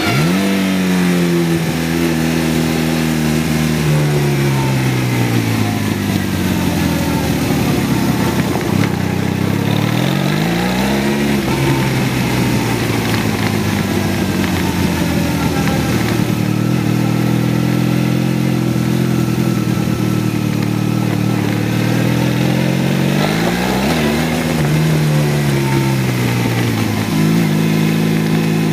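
Motorcycle engine running while the bike is ridden, heard from a camera mounted on the bike. Its pitch falls over the first few seconds as it slows, climbs again about ten seconds in, holds steady, then rises and falls once more near twenty-four seconds.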